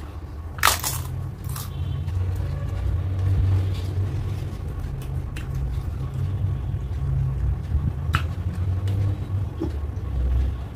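Close-miked chewing and mouth sounds of a person eating, with a steady low rumble and a few sharp clicks, the loudest about a second in.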